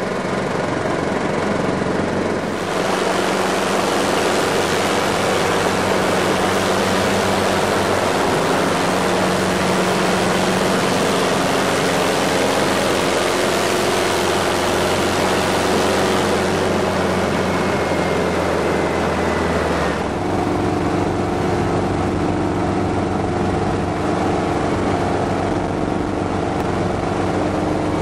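Hughes 269A piston helicopter in flight, heard from the cockpit: the steady drone of its piston engine and rotor. A rush of wind noise swells about three seconds in and eases off after about sixteen seconds, and the engine tone shifts about twenty seconds in.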